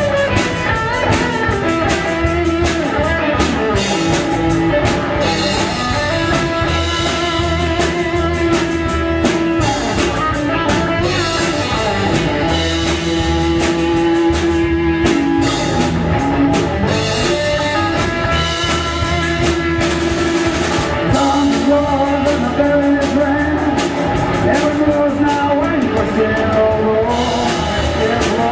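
Rock song played by a band: guitars and drum kit, with a sung vocal line.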